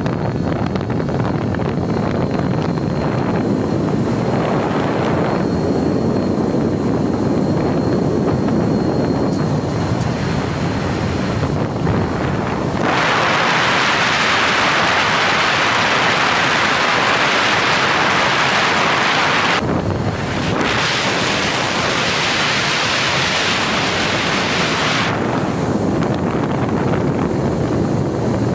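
Wind rush and motor noise picked up by the onboard camera microphone of a Mini Talon FPV plane in flight, with a thin steady whine in the first third. Around the middle the rush turns louder and hissier as the plane dives, dips briefly, then eases off a few seconds before the end.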